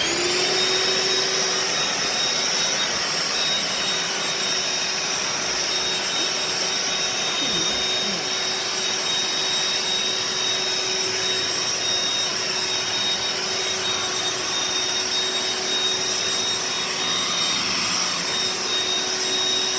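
Vacuum cleaner switched on, its motor spinning up to speed at the very start and then running steadily with a constant high whine.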